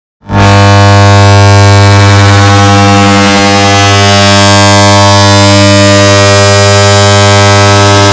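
An air conditioner's switch-on sound, digitally layered and amplified into a very loud, distorted buzzing drone with a strong low hum. It starts abruptly after a brief silence about a quarter second in and holds steady.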